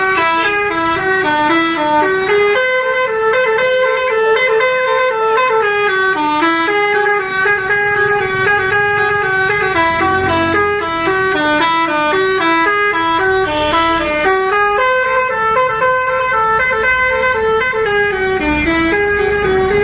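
Telolet horn on a Basuri bus, a multi-note air horn playing a fast melody of short stepped notes that repeats. A low rumble sits underneath around the middle and near the end.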